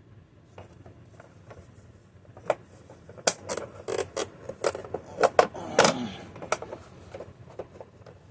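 Hands handling hard parts at close range: a quick run of clicks, taps and knocks with a short scrape, busiest in the middle and thinning out toward the end.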